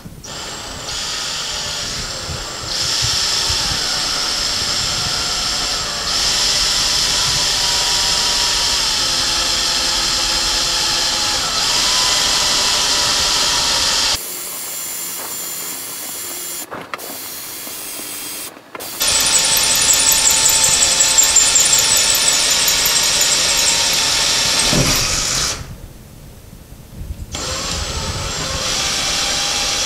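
Cordless drill with a 3/16-inch bit boring through drywall, enlarging small pilot holes for drywall anchors. The motor runs in three long stretches, easing off for a few seconds about halfway through and briefly again near the end.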